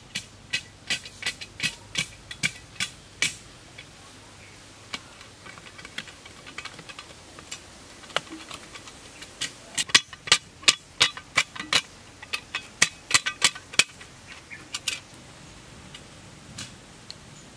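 Sharp, repeated strikes of a small hand tool chopping into hard forest soil to dig a hole at the base of a shelter pole, about three a second, in two runs with a pause of several seconds between them.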